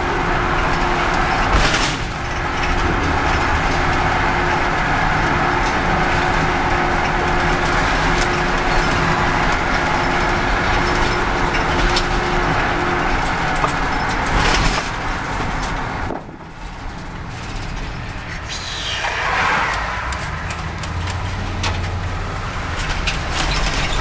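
Cabin noise inside a moving vehicle: a steady mix of engine and tyre noise while driving, with a couple of brief knocks. About two-thirds of the way through it drops quieter as the vehicle slows.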